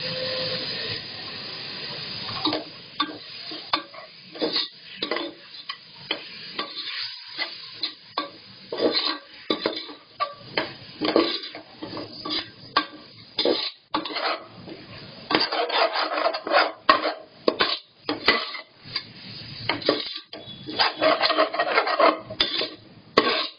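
Perforated metal ladle scraping and knocking against the sides of an aluminium pot, with irregular strokes, as vegetables and masala are stirred and sautéd.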